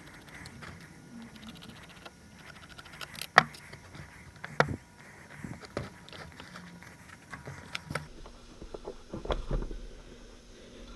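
Scattered clicks and light metal knocks of hand tools and small parts as the side cover of a McCulloch Super 550 chainsaw is unscrewed and pulled off.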